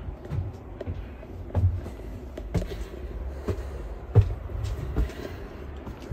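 Footsteps climbing steep stone stairs, an uneven thud about once a second over a low rumble.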